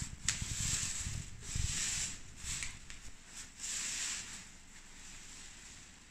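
Plastic and foam packing sheets rustling and crinkling in several bursts as they are pulled and bunched off a model aircraft fuselage, dying down after about four seconds.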